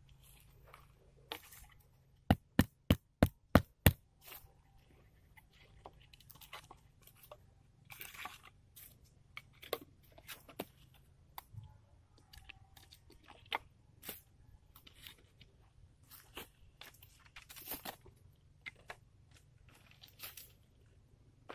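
Wooden sticks being handled and set in place on dry pine-needle ground: scattered crunching and rustling of twigs and needles, with a quick run of six sharp knocks about two seconds in, about four a second.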